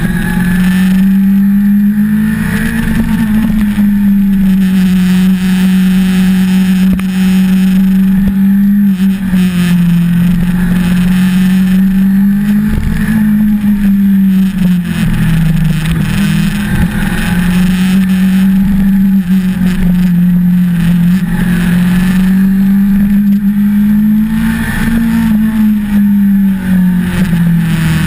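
1988 Suzuki GSX-R750J inline-four engine, heard from onboard while the bike is ridden. Its pitch rises and falls in long, repeated swells as the rider accelerates and eases off through a series of bends.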